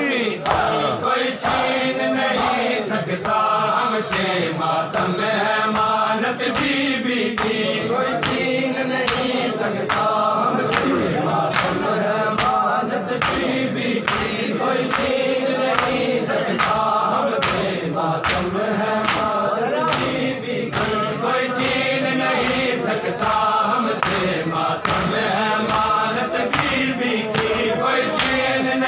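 Men chanting a noha together in a steady rhythm, with hands slapping on chests in matam keeping an even beat under the singing.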